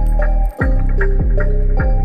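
Background music with a steady beat: deep bass notes and short, bright plucked notes in a repeating pattern.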